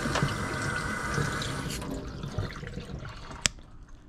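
Kitchen faucet running into a stainless steel sink, shut off a little under two seconds in. A single sharp click follows near the end.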